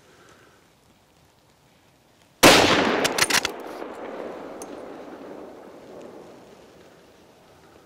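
A single close rifle shot about two and a half seconds in, its echo rolling away over the next few seconds, with a few sharp clicks just after the shot.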